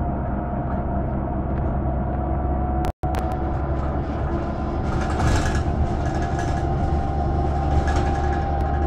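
Interior sound of a 2013 BredaMenarinibus Avancity+ CNG city bus under way: a steady low engine hum with road noise. The road noise and rattles grow a little after about five seconds. The sound cuts out for an instant about three seconds in.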